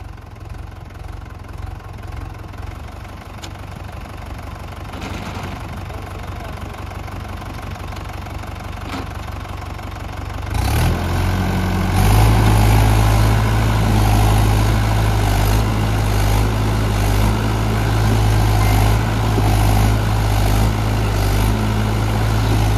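Swaraj 843 tractor's diesel engine running steadily, then revved up hard about ten seconds in and held at high revs, as it strains to pull out of deep mud.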